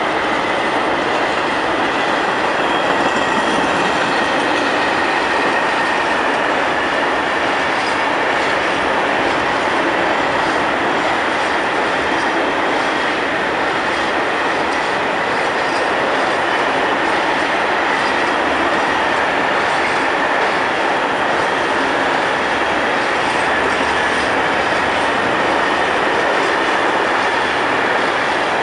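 Freight train of open coal wagons rolling past at speed: a steady, loud rumble and rattle of steel wheels on the rails, with a faint high wheel squeal running through it.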